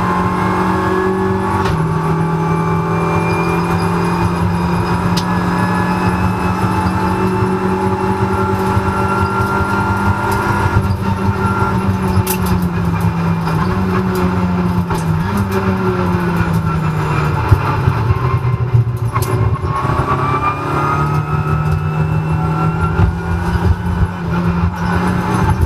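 Renault Clio Cup race car's engine heard from inside the cabin, held at high revs on the throttle with a few shifts in pitch. About two-thirds of the way through the revs drop as it slows and then climb again as it pulls away, with a sharp knock near that point.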